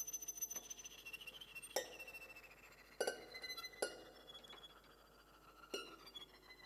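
Quiet free improvisation on prepared piano and violin: four sharp, glassy strikes that ring and fade, spaced a second or more apart, over faint high held tones.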